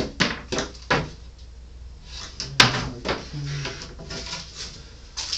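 Wooden fur stretcher boards knocking and clattering as they are handled and sorted, with several sharp knocks and the loudest about two and a half seconds in.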